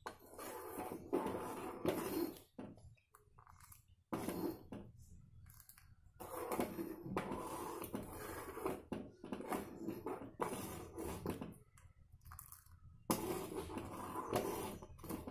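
Steel spoon stirring milk custard in an aluminium pan, scraping the pan in a run of uneven strokes with short pauses.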